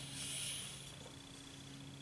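Ramrod sliding down the bore of a muzzleloading shotgun, a hissing scrape about a second long, pushing the card wad down onto the powder charge.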